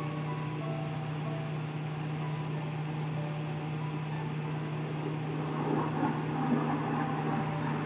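A steady low hum, with faint notes of soft background music over it in the first second or so. The sound gets rougher and a little louder in the last two seconds.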